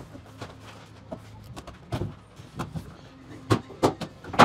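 Garage door panels being handled and stood against a stud wall: scattered knocks, clacks and scrapes, with several louder knocks close together near the end.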